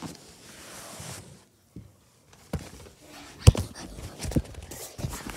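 A brief hush, then a series of sharp thumps and knocks, the loudest about three and a half seconds in.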